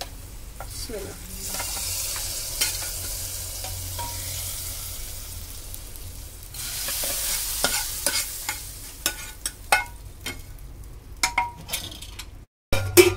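Hot tadka oil with fried garlic, onion, dried red chillies and spices poured into cooked lentil dal, sizzling loudly from about a second and a half in. It is followed by a ladle stirring, with a run of sharp clicks and scrapes against the aluminium pressure cooker and the pan.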